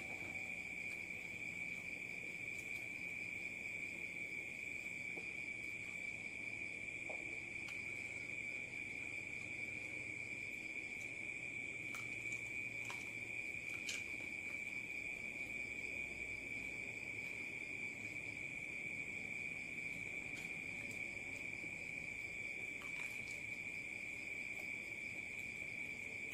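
A steady high-pitched trill that holds one pitch without a break, with a few faint clicks from eating.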